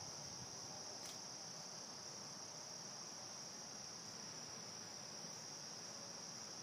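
Steady, high-pitched chorus of crickets, one unbroken outdoor drone.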